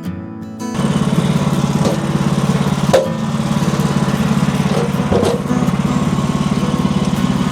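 A band sawmill's small gasoline engine running steadily, starting about a second in, with a couple of brief knocks over it.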